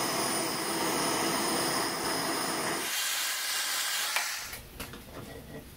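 Handheld gas torch hissing steadily as its flame scorches a wooden hammer handle. The hiss thins about three seconds in and fades to a faint hiss near the end.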